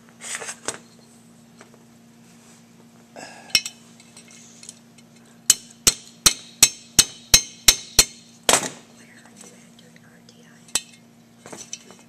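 Small metal carburetor parts and needle-nose pliers clinking and tapping against a steel work table while a float and its pin are fitted into a tractor carburetor's top half. Scattered light clinks are followed, about halfway through, by a run of about eight sharp metallic clicks, roughly three a second, and then one louder clatter.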